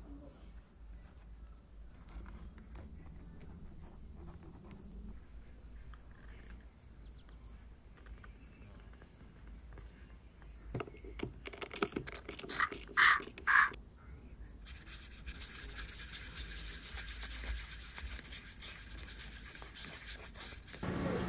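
Paintbrush stirring paint in a small paper cup, a steady scratchy rubbing that starts about two thirds of the way in, after a few short, sharp handling scrapes.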